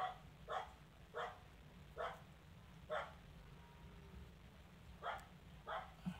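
A dog giving short, sharp barks: seven in all, roughly one every half second to second, with a pause of about two seconds in the middle.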